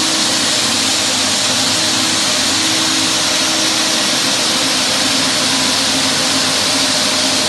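Roll Woody parquet floor sander running steadily, its rotating ceramic abrasive discs (grit 60) grinding UV lacquer off a wooden parquet floor. The attached dust-extraction vacuum hisses along with it.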